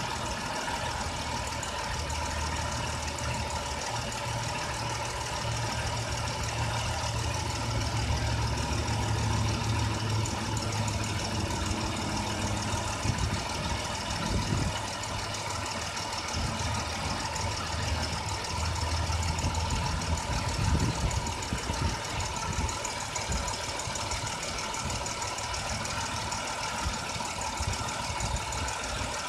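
A 1997 Oldsmobile Cutlass Supreme's 3100 V6 (3.1-litre pushrod V6) running steadily, getting louder for a few seconds around eight and twenty seconds in. The owner asks whether the noise it makes is piston slap.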